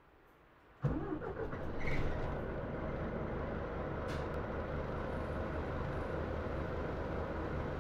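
Scania Citywide articulated city bus's diesel engine being started about a second in, picking up briefly and then idling steadily, with a steady hiss from the bus's air-conditioning over it.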